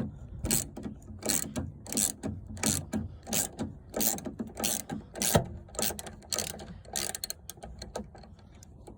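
Socket ratchet fitted with a 4 mm Allen (hex) bit being worked back and forth to undo a screw, its pawl clicking about twice a second and slowing near the end.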